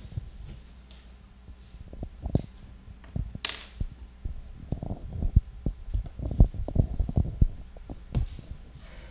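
Handling noise on a handheld microphone: irregular low thumps and bumps as it is moved about, thickest in the second half, with a short hiss about three and a half seconds in.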